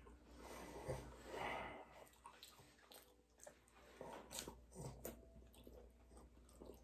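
Faint chewing of bready Hot Pocket sandwiches, with breaths and a few small clicks.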